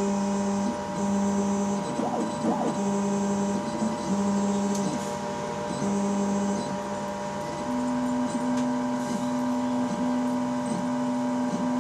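Tiertime UP Mini 2 3D printer's stepper motors whining as the print head makes back-and-forth passes of about a second each, laying down the raft at the start of a print. The pitch steps up and steadies a little after seven seconds, over a steady hum.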